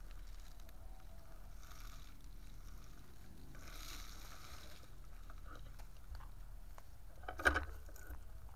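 Outdoor ambience: a steady low rumble of wind and handling noise on the moving camera's microphone, with soft rustling hiss twice, and one short, sharp pitched sound about a second before the end.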